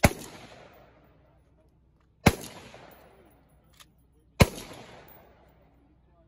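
Single-stack semi-automatic pistol fired three times, about two seconds apart, each shot a sharp crack followed by a long echo across the open range.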